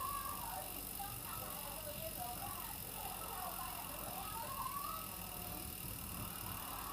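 Touring bicycle being ridden: a steady running noise with wavering squeaky tones that rise and fall.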